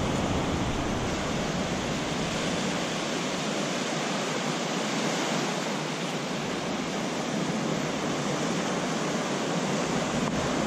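Breaking surf and a downpour of rain, heard together as one steady, even rushing noise with no distinct events.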